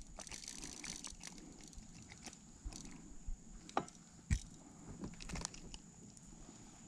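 Quiet handling noises of unhooking a small crappie from a jig: a scattered handful of small clicks and taps, the loudest a little past four seconds in.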